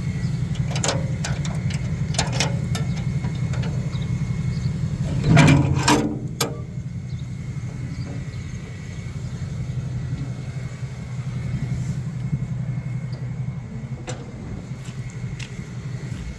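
A vehicle engine idling steadily, with a few knocks and clatters over it, the loudest a cluster about five to six seconds in.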